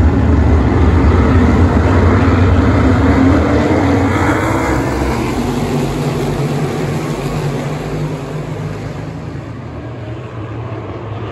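A pack of asphalt modified race cars running together, their V8 engines a dense, loud drone that fades over the second half as the field moves away.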